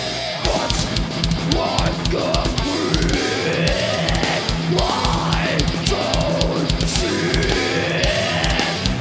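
Groove metal band playing live: a fast kick-drum beat under distorted guitars, with a pitched line gliding up and down over it.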